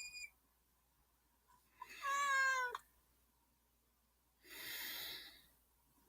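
An animal's high, wavering cry lasting about a second, then about a second later a breathy hiss.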